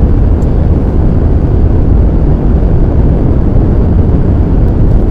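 Steady low rumble of a car driving along a road, tyre and engine noise heard from inside the cabin.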